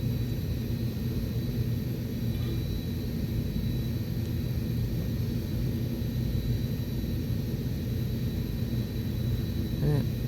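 A steady low mechanical hum with a constant pitch, a running machine in the room. A short rising squeak near the end.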